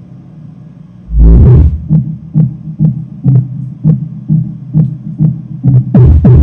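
Homemade subwoofer in an E-box enclosure with an MCV-style interior, playing a bass-heavy soundcheck track. After a quiet low hum, a deep boom comes about a second in, then a steady kick drum about twice a second, with another big hit near the end.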